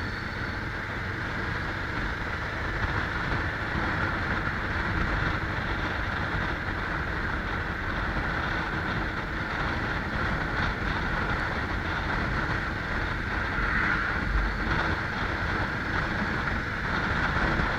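Steady rush of wind and the drone of a moving vehicle while riding, with no break or change.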